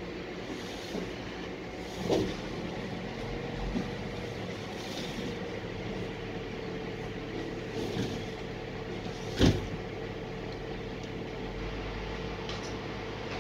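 Truck with a self-loading platform running steadily during container unloading, with a steady whine over the engine. Two sharp metal knocks cut through it, about two seconds in and a louder one about nine seconds in.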